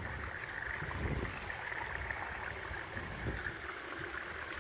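Wind buffeting the microphone: an uneven low rumble with a faint steady hiss above it.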